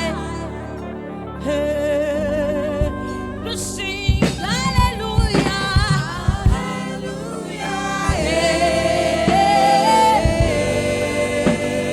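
Gospel praise music: singing with vibrato over sustained keyboard-like chords, with drum hits coming in about four seconds in.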